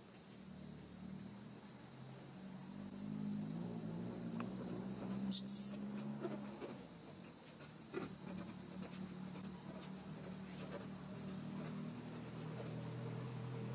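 Steady high-pitched insect chorus, with a low hum underneath that swells in the middle and a couple of faint clicks about five and eight seconds in.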